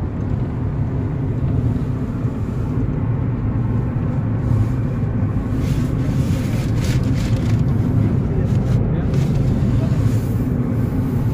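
Steady low road and engine rumble heard from inside a moving car, with a few brief hissy swells.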